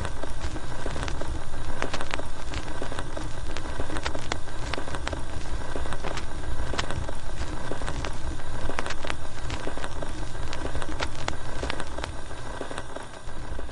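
Gramophone record surface noise: a steady crackle and hiss with many scattered clicks over a low rumble, with no music, as the needle runs in the groove.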